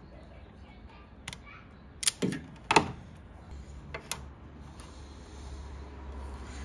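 Self-adjusting wire stripper working on a thin wire, giving a few sharp clicks and snaps as it stripped the insulation partway along the wire. A low rumble builds up behind it in the second half.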